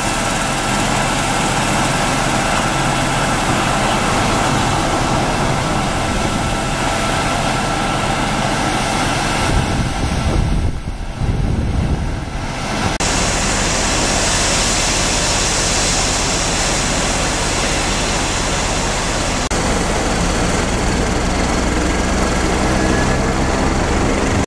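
Emergency vehicles' engines idling, a steady low hum under a constant hiss, dipping briefly about eleven seconds in.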